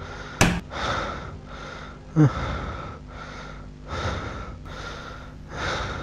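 A man panting hard in fear, quick gasping breaths about two a second, with a short vocal catch partway through. A single thump comes about half a second in.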